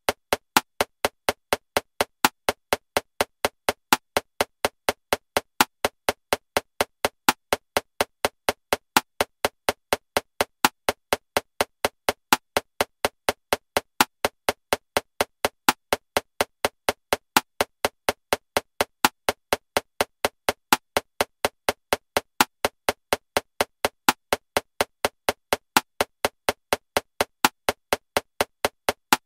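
Metronome clicking at 250 beats per minute, about four clicks a second, with a louder accented click on every seventh beat marking 7/4 time.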